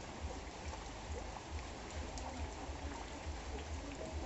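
Steady rain falling on a wet concrete yard, puddles and leaves, an even hiss with a low, uneven rumble underneath.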